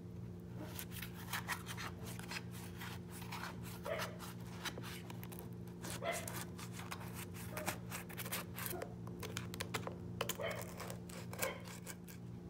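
A plastic knife scraping and scratching along the sides of a metal loaf pan, in irregular short strokes and clicks, to loosen a baked loaf before it is turned out. A steady low hum runs underneath.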